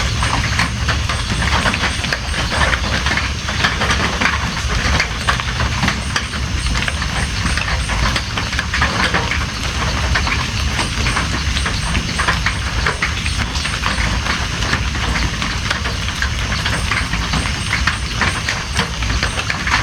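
Steady rain, with a dense stream of drops ticking on a nearby surface over a low rumble.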